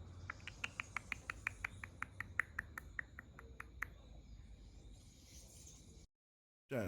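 A small animal chirping: a fast, even run of about twenty short, high chirps lasting some three and a half seconds, then only a faint hiss.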